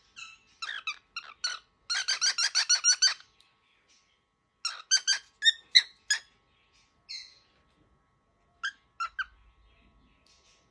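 Cockatiel giving short, harsh, squeaky calls in bursts, including a rapid run of about ten about two seconds in, then scattered calls: an agitated, angry bird.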